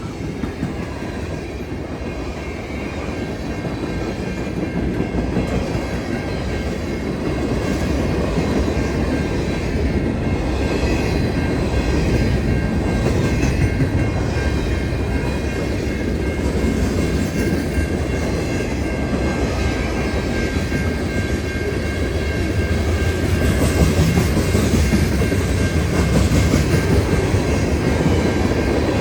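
A long freight train of about 80 cars rolling past at close range: a continuous rumble with wheels clattering over the rails, growing gradually louder toward the end.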